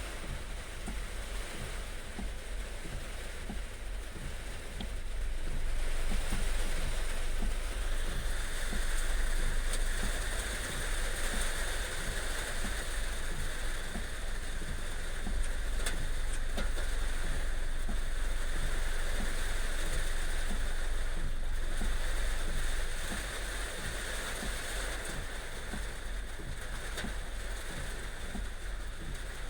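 Heavy rain pouring down, a steady rushing hiss with a low rumble underneath; it swells louder about six seconds in and eases back a little past twenty seconds.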